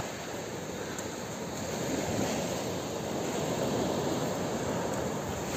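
Surf washing up on a sand-and-shingle beach: a steady rush of breaking waves that swells gently about two seconds in and again near four seconds.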